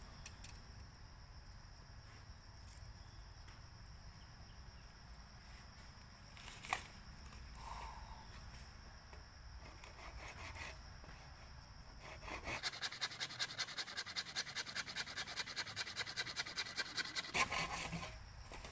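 Hand saw cutting into a bamboo pole in a fast, even run of short strokes, starting about two-thirds of the way in and stopping shortly before the end. Before it there is only quiet outdoor background with a single sharp knock.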